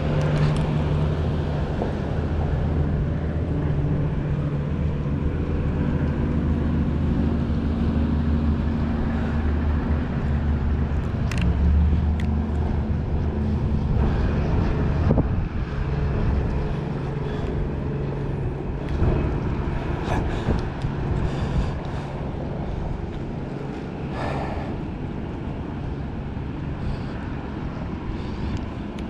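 A pickup truck's engine runs with a low, steady note as the truck drives past on the pier, then fades out about halfway through. Wind rushes on the microphone throughout, and a few light knocks come later.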